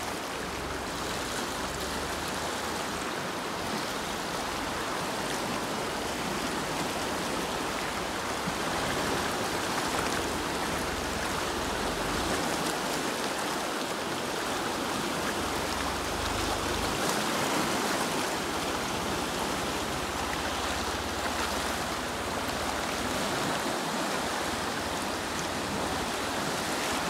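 Fast canal water rushing steadily as it pours out of the tunnel and churns through the concrete channel.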